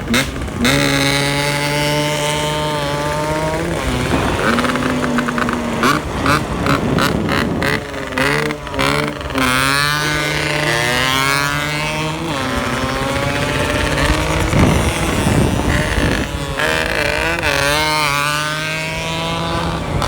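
Yamaha RX-King 135cc single-cylinder two-stroke engine revved again and again, its pitch sweeping up and dropping back with each blip of the throttle, with a run of sharp crackles in the middle. It has a snoring burble ('ngorok') from a rich, 'wet' carburettor setting.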